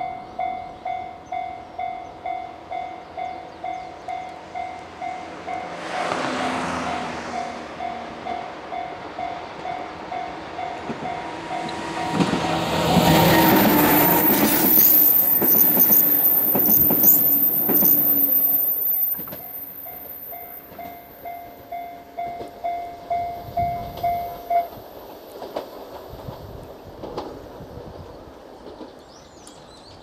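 Japanese level-crossing alarm bell dinging steadily, a few strokes a second, as a four-car 103 series electric train approaches and passes close by about twelve seconds in. Its wheels clack over the rail joints under a high steady squeal. The bell stops about two thirds of the way through.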